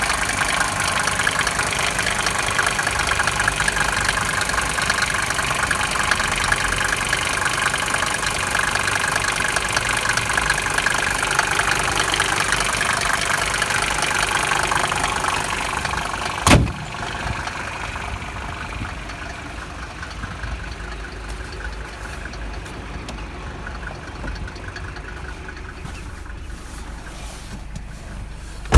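Mercedes-Benz W124 250D's five-cylinder diesel idling steadily. About halfway through, a sharp click is followed by a quieter, duller idle heard from inside the cabin.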